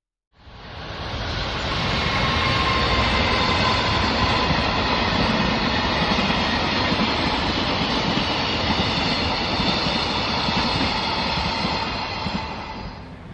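A train passing close by on the tracks at speed, with continuous wheel-on-rail noise that swells up quickly, holds steady, and dies away near the end as it goes by.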